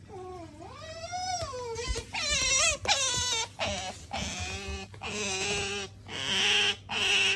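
Asian small-clawed otter calling in a run of whining squeals that glide up and down in pitch. The calls turn harsher and screechier near the end.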